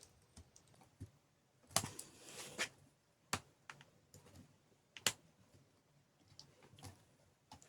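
Scattered small clicks and taps of a screwdriver working the screws on a laptop's cooling-system heatsink, with a brief scrape about two seconds in.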